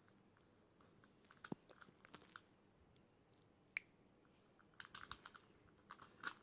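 Faint, scattered plastic clicks and light rattles of a Rubik's cube being handled and turned, in small clusters.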